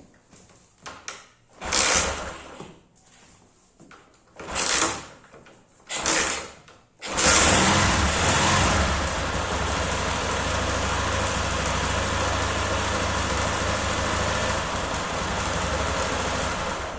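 Honda CG Titan's single-cylinder four-stroke engine, air filter removed, firing in three short bursts, then catching about seven seconds in and running steadily for about ten seconds before it cuts out near the end. It will not hold an idle, which the owner puts down to a dirty carburettor.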